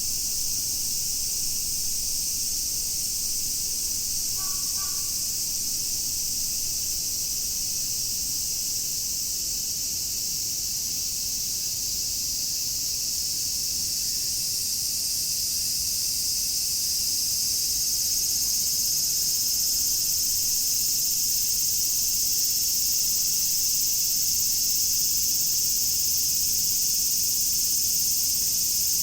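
Chorus of cicadas: a dense, steady, high-pitched shrill that grows slightly louder about halfway through. A crow gives a brief caw about four seconds in.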